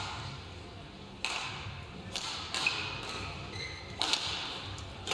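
Badminton rally: rackets striking a feathered shuttlecock, from the serve through about five sharp hits roughly a second apart, in a large sports hall.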